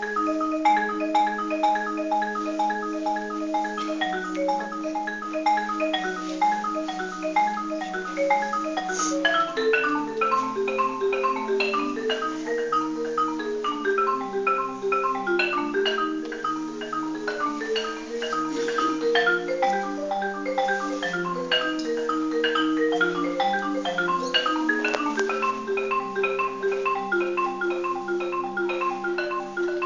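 Solo marimba played with mallets: a continuous flow of repeated notes and arpeggios. About a third of the way in, the lower notes start moving more and reach further down.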